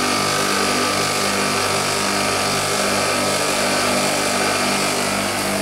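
Milk tank refrigeration unit running, its Copeland scroll compressor humming steadily over an even rushing noise, with a faint regular pulsing in the low hum. The compressor has just been restarted after its burnt terminal connections were remade, and is drawing about 15 amps.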